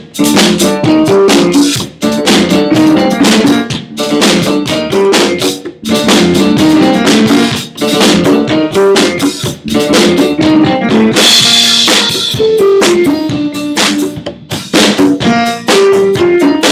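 A small band playing live: a drum kit keeping a steady beat of bass drum and snare hits, with bass guitar and keyboard notes underneath.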